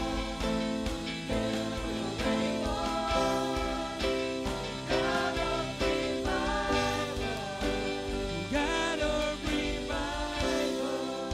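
Live worship band: several singers singing a slow chorus together over acoustic guitar and band accompaniment.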